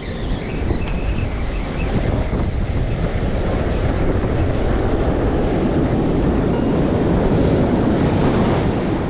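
Ocean surf on a rocky shore mixed with wind buffeting the microphone; the wash swells up from about halfway through and is loudest near the end, as a wave comes in.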